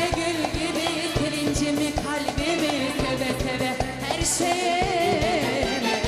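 Turkish song music with a steady percussion beat and a wavering, ornamented melody line, with singing.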